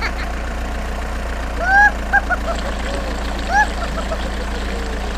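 Engine idling with a steady low rumble, while a few short chirps rise and fall over it, the loudest about two seconds in and again near the middle.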